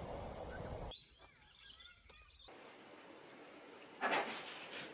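Outdoor background noise, then a short quiet stretch with birds chirping. After that comes a quiet room where a bag rustles sharply about four seconds in.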